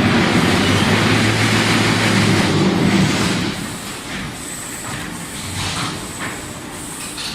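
Concrete block making machine running: a loud, steady vibrating hum for the first three and a half seconds or so, then quieter mechanical running with scattered knocks.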